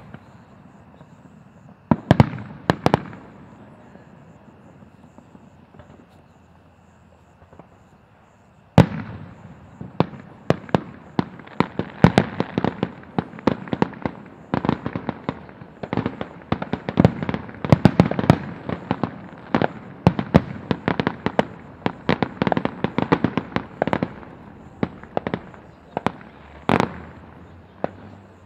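Aerial fireworks shells bursting: a few sharp bangs about two seconds in, a lull, then from about nine seconds in a rapid, dense barrage of overlapping bangs that thins out near the end.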